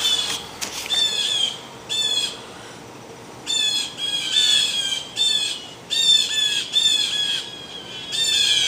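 Blue jays screeching their harsh, grating jay calls over and over, in quick runs of one to three, with a short pause about a third of the way through.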